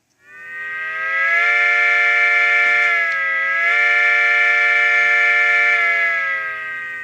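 A loud, siren-like tone of several pitches sounding together. It swells in with a slight rise, dips briefly in pitch about three seconds in, then holds steady until it stops at about seven seconds.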